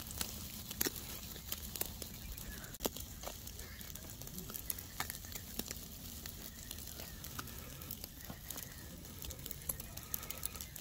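Carp pieces on skewers sizzling over charcoal, with scattered sharp pops and crackles as the fish fries.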